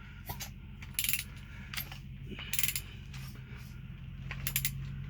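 Ratchet wrench clicking in short bursts, about five times, as it turns a Mazda 3.0 L engine's crankshaft by hand on the harmonic balancer bolt, with the spark plugs out. A steady low hum lies underneath.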